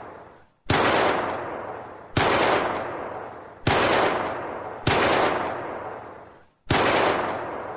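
9mm pistol fired five single shots, roughly one every one and a half seconds, each followed by a long echoing decay.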